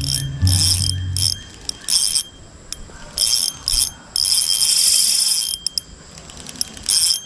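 Spinning reel's drag clicking in repeated bursts as a hooked fish pulls line off against 1 lb line, between turns of the handle; the longest run lasts about a second and a half near the middle. A low hum fades out after about a second.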